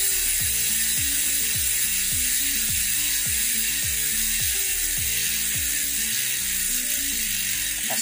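Koozer XM490 six-pawl, 72-click mountain-bike rear hub freewheeling as it is spun by hand: a steady, fast buzz of pawl clicks. A low repeating music beat runs underneath.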